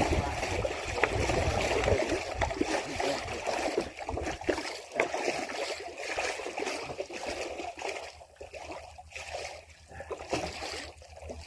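Water splashing and sloshing in irregular bursts, loudest in the first few seconds and dying down toward the end.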